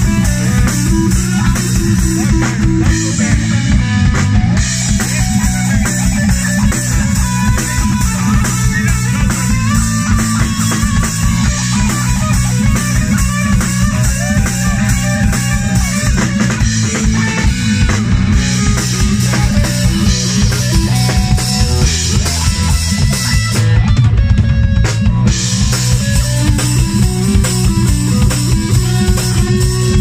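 Live rock band playing an instrumental passage: electric guitar, bass guitar and drum kit with cymbals, steady and loud.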